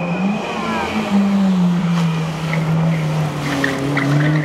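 Rally-prepared Honda Civic Type R's four-cylinder engine running hard through a tight tarmac hairpin, its note sagging slowly in pitch, with a thin tyre squeal in the first second.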